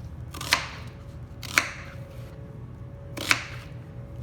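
Kitchen knife cutting through vegetables onto a cutting board: three separate, sharp chops spaced a second or more apart, over a steady low hum.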